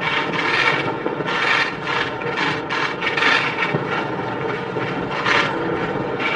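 Felt-tip marker rubbing across a poster board as words are written on it: a quick, irregular series of short strokes.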